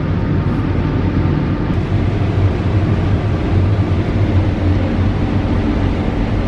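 John Deere X9 combine harvester running while harvesting corn: a steady mechanical drone of engine and threshing machinery with a strong low hum.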